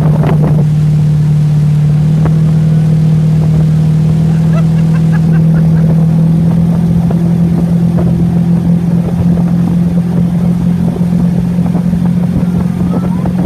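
Motorboat engine running at a steady speed, a constant low hum that neither rises nor falls.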